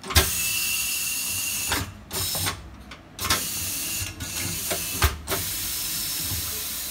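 Compressed air hissing in repeated bursts from a pneumatic tire changer working the clamps on a bare steel truck rim, broken by short pauses, with a sharp metallic clunk near the start and another about five seconds in.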